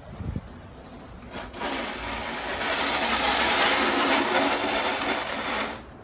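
A brief low thump, then a small motor starts about one and a half seconds in, runs loud and steady for about four seconds, grows louder about a second after starting, and cuts off suddenly near the end.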